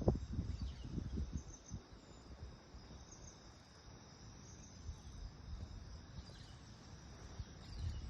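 Faint outdoor ambience with insects chirring steadily, and a few low thumps in the first two seconds.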